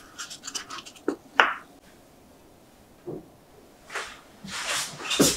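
A silicone spatula scraping soft, half-melted vanilla ice cream from its cup into a glass bowl, with a few light scrapes and taps in the first second and a half. Later come soft rustling and a sharp knock near the end as the glass bowl is handled.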